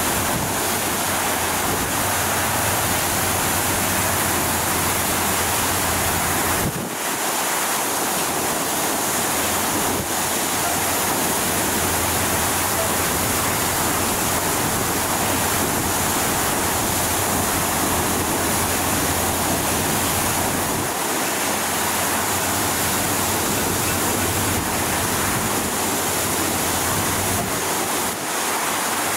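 Water rushing out at high pressure from a sheared fire hydrant: a loud, steady rush that dips briefly a few times.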